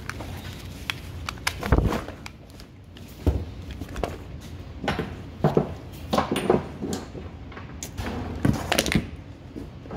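Rummaging through a cardboard box of clothes and small items: fabric and cardboard rustling, with irregular knocks and thumps as things are moved and set down.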